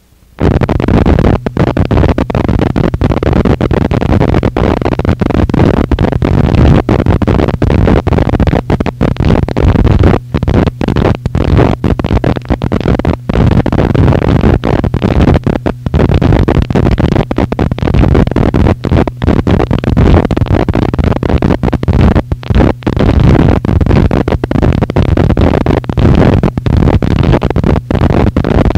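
Harsh noise wall: a loud, dense wall of distorted noise, heaviest in the bass. It starts abruptly just after the beginning and is broken by frequent brief dropouts.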